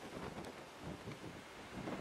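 Wind buffeting the microphone: a low, rumbling rush with no clear pitch that swells again near the end.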